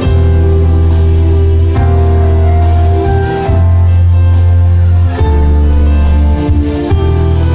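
Instrumental duet on a digital piano and an electronic keyboard playing a slow ballad, with chords held over deep bass notes that change about every one and a half to two seconds.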